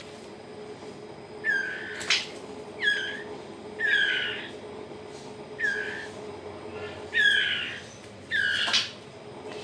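White-rumped shama fledglings, about 20 days old, giving repeated short begging calls while being hand-fed, each call falling in pitch, about one a second. A sharp click comes about two seconds in.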